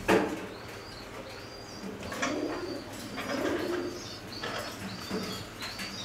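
Domestic pigeons cooing low, mixed with a run of short, high chirps from other caged birds. A sharp knock comes at the very start.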